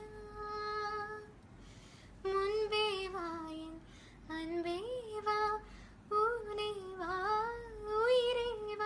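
A woman singing a slow melody in phrases with long held and gliding notes, with little or no instrumental accompaniment.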